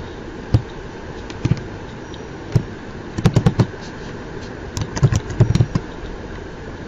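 A pen writing on paper on a hard desk: scattered light taps and knocks, with two quick runs of taps about three and five seconds in, over a steady background hum.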